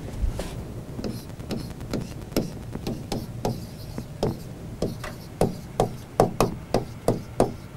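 Pen tip tapping and knocking on a smartboard screen while handwriting, an irregular run of short taps that come faster from about five seconds in.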